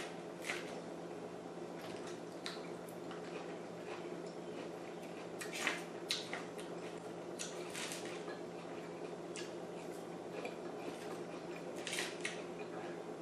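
Fork clicking and scraping against a takeout salad container while eating, with mouth and chewing sounds, over a steady low hum. The loudest clicks come about halfway through and again near the end.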